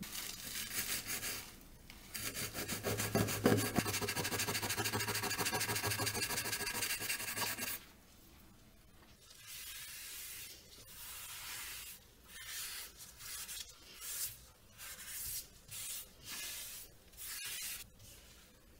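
A knitted scrubber and then a cloth rubbing hard on a gas stove's enamel burner pan, scrubbing burnt marks off under a cleaning paste. It starts as a few seconds of fast, continuous scrubbing, and after about eight seconds turns into separate wiping strokes, about one a second.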